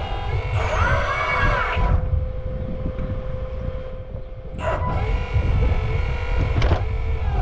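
1/8-scale 385CF RC excavator's hydraulic pump whining, its pitch dipping and rising as the machine works, over a low rumble. It eases off in the middle, then picks up again with two sharp clicks.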